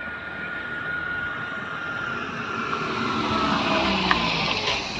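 A passing vehicle whose engine and road noise grow steadily louder, with a slight drop in pitch about three to four seconds in.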